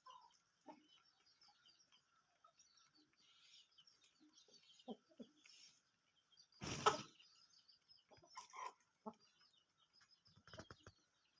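Aseel chickens clucking and peeping faintly in short, scattered calls. A brief burst of noise about seven seconds in is the loudest sound, with a smaller one shortly after.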